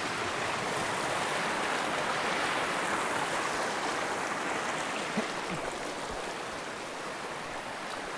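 Shallow river rushing and splashing over boulders: a steady hiss of fast white water, a little softer after about five seconds.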